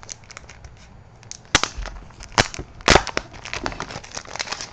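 Mail packaging being opened and handled by hand: small crinkling clicks with three sharp snaps, the first about a second and a half in and two more within the next second and a half.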